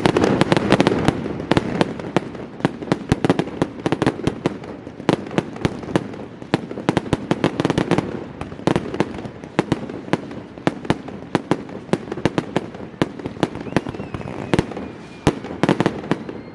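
Fireworks going off: rapid sharp cracks, several a second, over a continuous low rumble of bursting shells.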